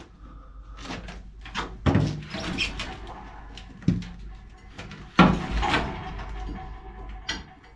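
Metal clanks and knocks from hand work on a water heater's top pipe fittings, a scattered string of sharp knocks, the loudest about two seconds and about five seconds in.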